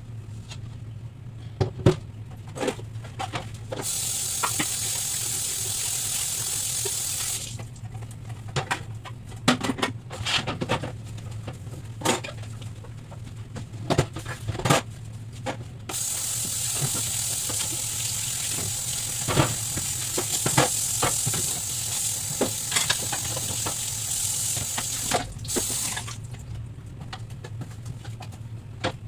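Kitchen tap running at the sink in two spells, a few seconds and then about ten seconds, with clatter and knocks of items being handled and washed in the sink throughout.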